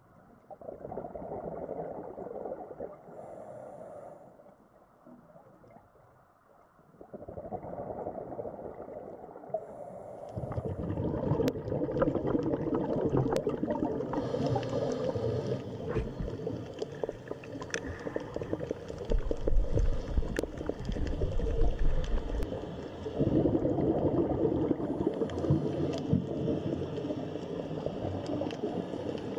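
Muffled underwater water noise with bubbling and gurgling, growing louder and fuller from about ten seconds in, with scattered sharp clicks.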